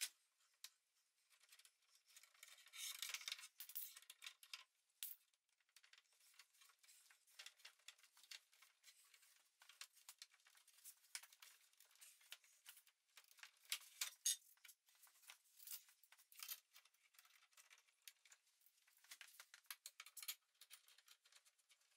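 Faint scattered clicks and rustles of quick-release bar clamps being loosened and lifted off a glued-up wooden lid frame, with hands shifting the wood.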